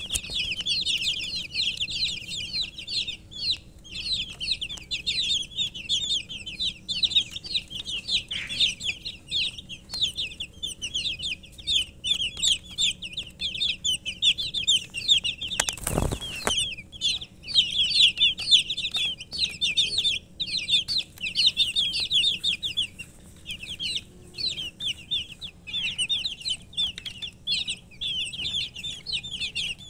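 A brood of domestic chicken chicks peeping constantly, many short high downward-sliding chirps overlapping. There is one brief thump about halfway through.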